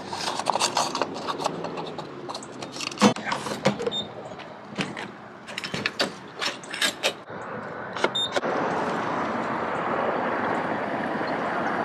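A run of clicks and knocks as the car's fuel cap is taken off and a gas pump nozzle is put into the filler neck. From about eight seconds in, a steady rush of fuel flows from the nozzle into the tank.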